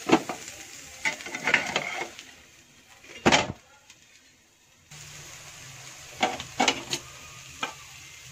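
Glass pan lid coming off a nonstick frying pan with a clink, then scattered knocks and clatters of cookware, over a steady low frying hiss from the dough cooking in the pan.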